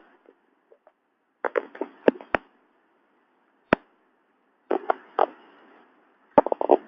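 Scattered sharp clicks and pops, some single and some in quick clusters of three to five, over a faint hiss.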